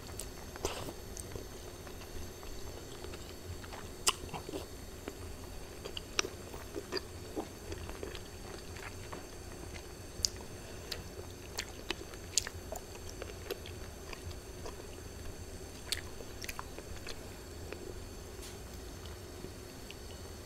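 Close-miked chewing of shabu-shabu noodles and beef, with irregular wet mouth clicks and smacks. A faint steady hum runs underneath.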